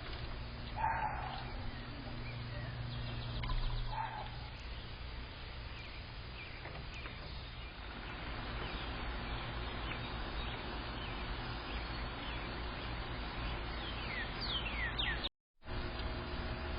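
Two short, sharp sneezes from a squirrel in its nest, about three seconds apart, over a steady low hum. A few quick falling bird chirps come near the end.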